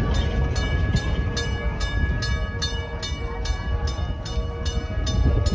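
Train that has just passed rumbling away down the track, with a regular beat about four times a second and a steady high tone over the rumble.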